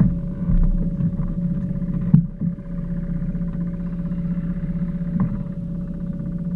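Small pond boat's motor running with a steady hum, with a sharp knock about two seconds in.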